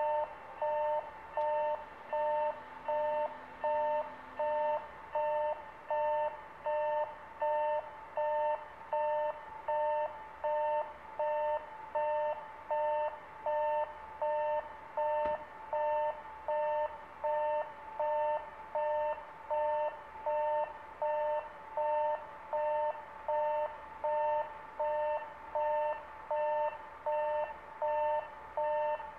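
Electronic railway level-crossing warning bell ringing, a steady two-tone ding repeating about once every 0.8 seconds, the signal that a train is approaching.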